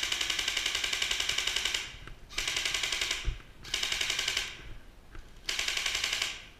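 Airsoft gun firing on full auto in rapid, evenly spaced rattling bursts. One long burst of about two seconds is followed by three shorter ones.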